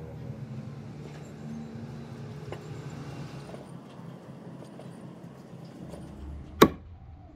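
Kitchen axe chopping grilled pork on a wooden cutting board: a few faint taps, then one sharp, loud chop of the blade onto the board near the end.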